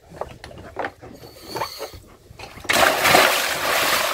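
A scuba diver in full gear does a backward-roll entry off the side of a boat, hitting the sea with one big splash about two-thirds of the way in that slowly dies away. A few small knocks come before it.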